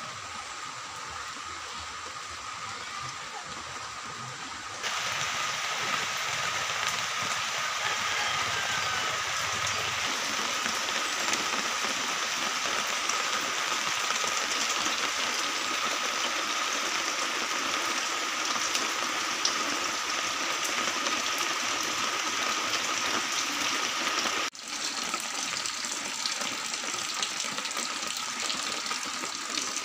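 Steady hiss of falling rain, stepping louder about five seconds in and dropping out for a moment near the end, with a faint steady high tone under it.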